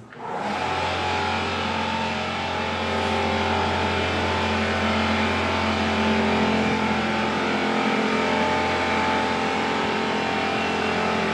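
A steady motor drone with a low hum and a few fixed higher tones over an even hiss, starting abruptly and holding an even level.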